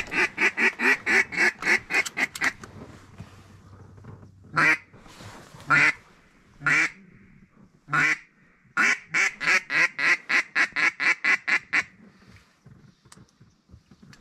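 Mallard duck call blown in quick runs of loud quacks, about five a second, with four single, drawn-out quacks spaced between the runs. The runs come in the first couple of seconds and again about two thirds of the way through, and the calling stops a couple of seconds before the end.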